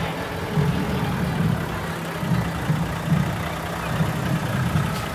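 Diesel engine of a Volvo FM 460 concrete mixer truck running low and steady as the truck rolls slowly past.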